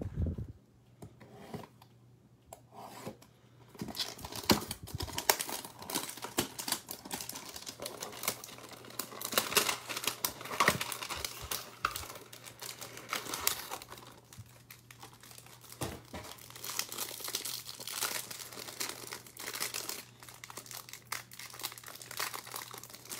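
A Panini Select football card hanger box being torn open by hand, and the cellophane-wrapped stack of cards pulled out and handled: crinkling and tearing of cardboard and plastic. The first few seconds hold only a few light taps, and the crinkling runs steadily from about four seconds in.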